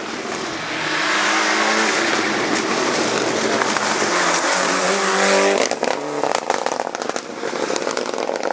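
Rally car engine at full throttle, growing louder and climbing in pitch. About five and a half seconds in it lifts off suddenly, and a run of sharp pops and crackles follows as it goes past.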